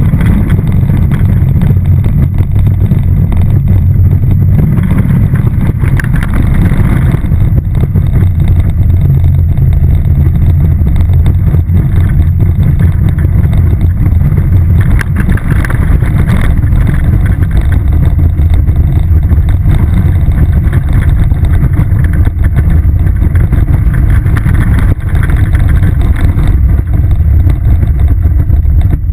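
Steel roller coaster train running through its course: loud, steady rumble of the wheels on the track, mixed with wind rushing past the car-mounted camera.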